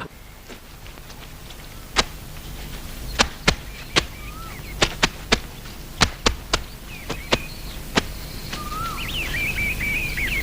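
A dozen or so sharp, irregular taps or knocks, with faint bird chirps between them that thicken into a quick run of chirps near the end.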